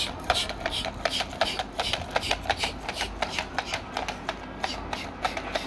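Battery-powered walking rabbit toy running, its mechanism clicking in an even rhythm of about five clicks a second.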